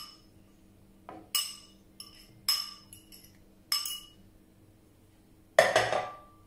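Metal utensil clinking sharply against a ceramic bowl four times as food is scraped out, each clink with a short ring. Near the end the ceramic bowl is set down on a stack of plates with a louder clatter.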